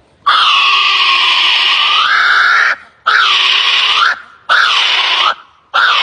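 A bird giving harsh, screeching calls: one long call of over two seconds, then three shorter ones in quick succession.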